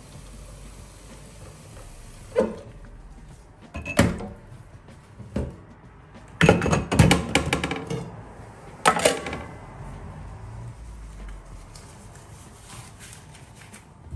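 Tap water running into a stainless-steel sink until it is turned off about three seconds in, then a series of sharp clanks and knocks as bowls, a metal plate and other dishes are handled and set down in the sink, loudest in a burst of rapid clatter around the middle.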